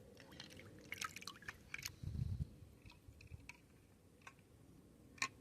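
Faint small splashes and drips of water at close range, with scattered light clicks, a low knock about two seconds in and a sharper click near the end.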